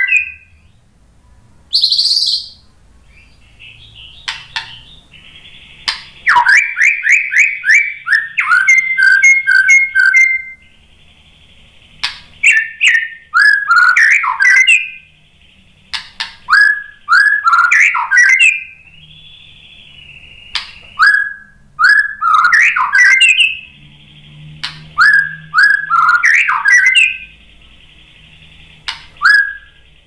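White-rumped shama (murai batu) singing: loud whistled phrases of quick falling notes, each phrase a second or two long, repeated again and again with short pauses between them.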